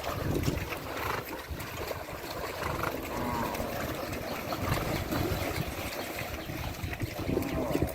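Water churning and splashing as horses wade and swim through a deep creek, with wind buffeting the microphone. A few short pitched calls are heard faintly around the middle.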